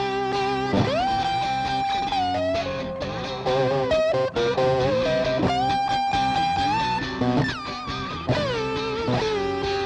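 Instrumental break of a blues-rock song: a lap steel guitar plays a slide lead, its notes gliding down and up between pitches and held with vibrato, over an electric guitar's chords and riff.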